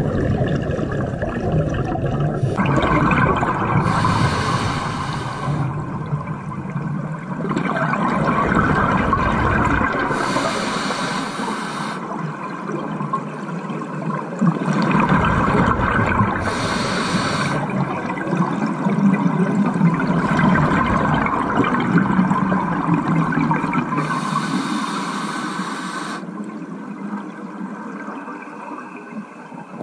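Scuba regulator breathing recorded underwater. There is continuous bubbling and rumbling noise, and four hissing breaths come in a slow cycle about six seconds apart.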